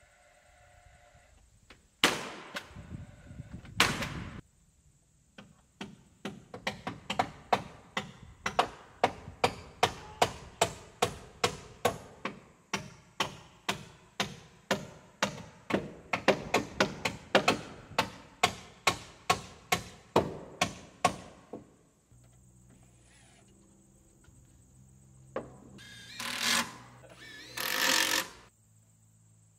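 Hand hammer nailing boards onto timber roof framing: two heavy knocks, then a long run of sharp strikes, two or three a second, in several runs. Near the end a cordless drill runs in two short bursts, about a second each.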